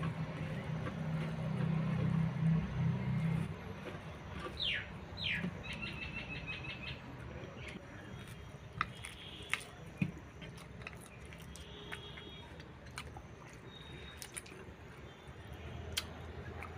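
Small birds chirping: two quick falling whistles about five seconds in, then a fast trilling call, with more short calls later. A few sharp clicks are heard in between.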